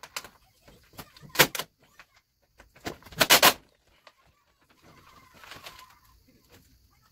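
A large sheet of gloss black vinyl wrap film crackling and rustling as it is lifted and shaken out by hand: three loud crackles in the first few seconds, the loudest about three seconds in, then a softer rustle as the film is laid down and handled.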